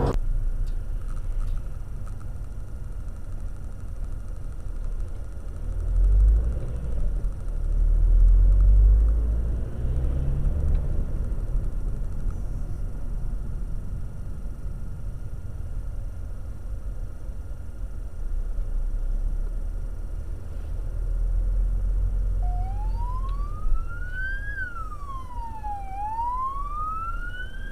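Steady low rumble of a car driving, heard from inside its cabin. About 22 seconds in, a police car siren starts, wailing in slow sweeps that rise and fall, and runs on past the end.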